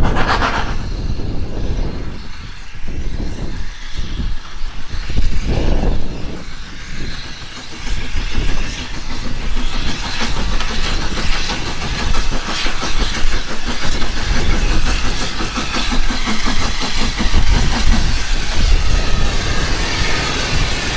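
Hunslet saddle tank steam locomotive and its coaches running into the station, wheels clattering over the rail joints, sounding closer and clearer in the second half as it comes up alongside.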